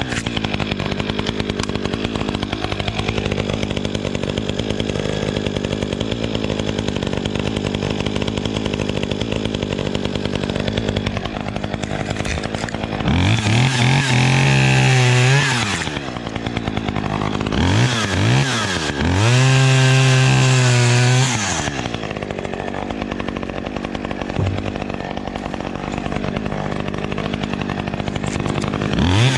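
Two-stroke chainsaw running steadily at part throttle, then revved up to full throttle twice, about 13 and 19 seconds in, each time for two to three seconds, with the pitch sagging and recovering around each rev.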